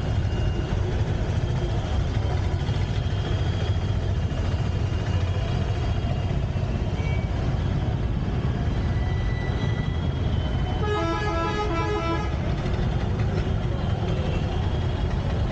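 Busy street traffic with a steady low rumble of engines, and a vehicle horn sounding in quick pulses for about a second and a half, about two-thirds of the way through.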